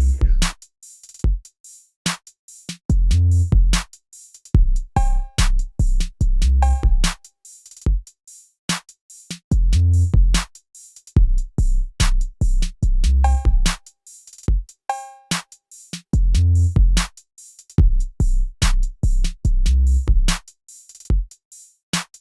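Background music: a drum-machine beat with deep bass-drum hits and sharp clicks, in a pattern that repeats about every three seconds, with a few short pitched notes.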